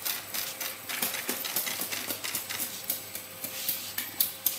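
Automatic card labeling machine running, with quick, uneven mechanical clicking and clatter several times a second over a faint steady hum as cards feed along its conveyor.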